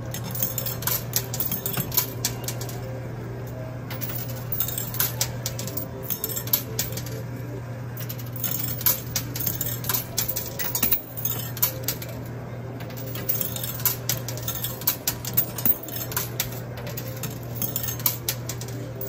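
Quarters dropped into a coin pusher machine clinking and clattering onto the coin-covered shelves, a run of irregular metallic clicks over a steady low hum.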